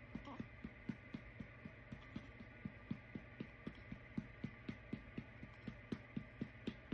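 A hand patting a newborn baby's back to bring up a burp: soft, even pats, about four a second.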